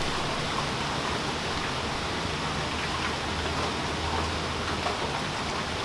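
Steady rain falling, with scattered small drips, and a low hum underneath.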